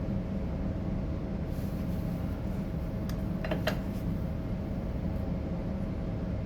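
Steady background hum with a faint constant tone, and a quick cluster of small metallic clicks about three and a half seconds in as the brake caliper and its spring clip are handled.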